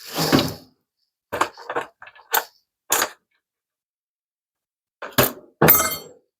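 A string of short clicks and rattles with pauses between them: small screws and their plastic case being handled and sorted by hand.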